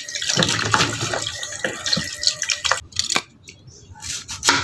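Tap water running and splashing over crabs being scrubbed by hand in a plastic basin; it stops abruptly about three seconds in, followed by a few light knocks.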